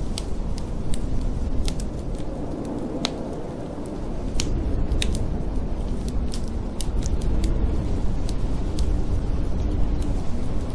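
Wood fire crackling in a fireplace, with sharp pops scattered irregularly, over a steady low rush of blizzard wind.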